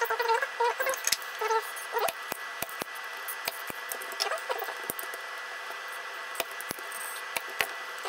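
Clicks and taps of a smoke detector's plastic housing and circuit board being handled and taken apart, with a few short squeaky chirps, the loudest near the start.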